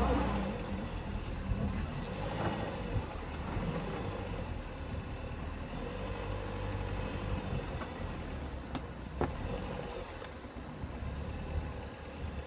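A 2000 Dodge Neon's four-cylinder engine running steadily at low speed as the car crawls over a rough dirt trail. There is a loud thump right at the start and a few sharp knocks later as the car hits bumps.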